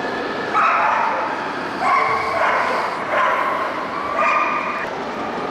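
A dog whining in a series of high calls, four of them, each held for about half a second to a second.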